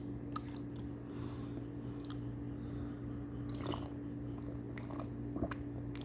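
A person chewing and biting into zucchini pancake, with scattered small wet clicks and smacks, over a steady low hum.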